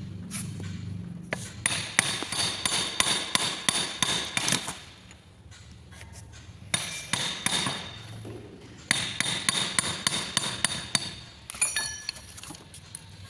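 Hammer striking metal in quick taps, several a second, with a ringing metallic tone, in two runs of a few seconds each separated by a pause: tapping parts of a car gearbox loose during disassembly.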